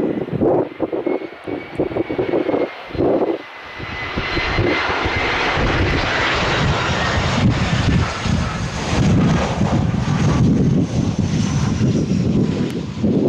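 Airbus A320 jet airliner on final approach, its engines a steady rushing hiss and rumble with a high whine that drops slightly in pitch, growing louder and fuller from about four seconds in. Gusty wind buffets the microphone in the first few seconds.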